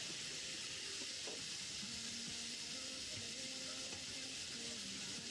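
Minced burger meat sizzling steadily on a hot flat-top griddle, with a metal spatula scraping and pressing it now and then.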